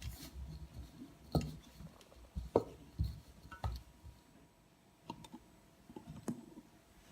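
Hands kneading maida dough in a bowl, with scattered knocks and clinks of the bowl about once a second and a quieter pause in the middle.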